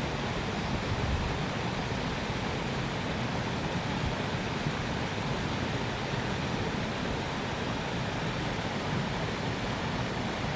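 Steady, even rushing noise with no distinct events, level throughout.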